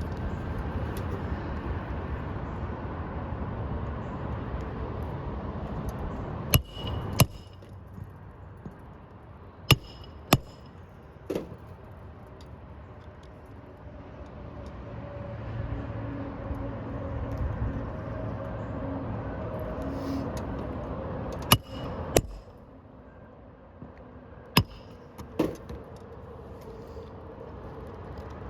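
A hammer nailing down a replacement asphalt shingle: about nine sharp blows, mostly in pairs, in two bursts separated by a pause, over a steady low background rumble.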